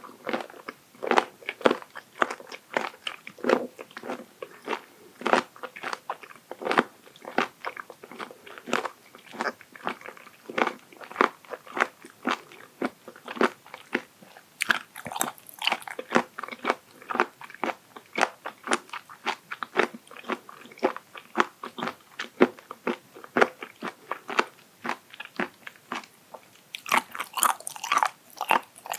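Close-miked chewing of raw abalone sashimi: a steady run of firm, crisp crunches, several a second, with sharper, brighter bites about halfway through and again near the end.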